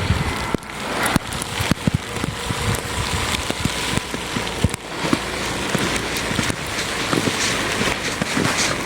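Stormy outdoor noise: wind rushing over the microphone, with many irregular taps and knocks like precipitation striking it.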